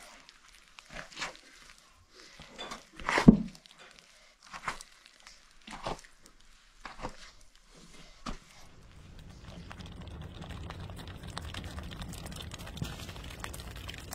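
Hands squeezing and kneading a stiff, floury bread dough in a basin: a series of separate soft squishing, crumbling bursts, the loudest about three seconds in. After about eight seconds the bursts give way to a steady low background hiss.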